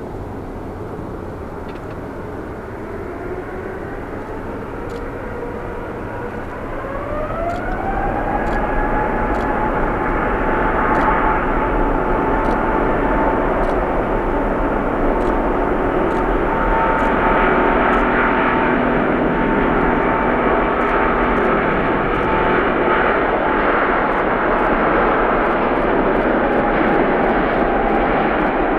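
Airbus A350-900's Rolls-Royce Trent XWB turbofans spooling up: a whine glides up in pitch and the jet noise grows louder about seven seconds in, then holds steady at high thrust.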